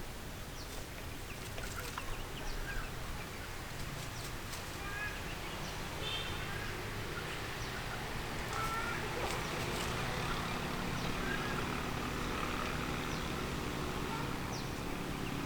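Young chickens peeping in short, scattered high chirps, with a few sharp clicks among them, over a steady low rumble.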